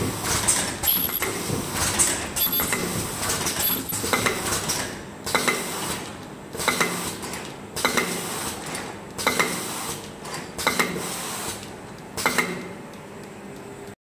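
Ultrasonic ear-loop mask welding machine with its folding and counting conveyor running, its mechanisms clattering and clicking in a repeating production cycle. About a third of the way in, the clatter settles into a burst roughly every second and a half, over a faint steady high whine, and the sound cuts off suddenly at the end.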